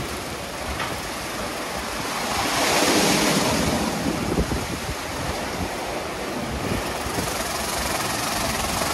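WashTec SoftCare Bravo rollover car wash at work, water spraying onto the car in a steady rush that swells about three seconds in.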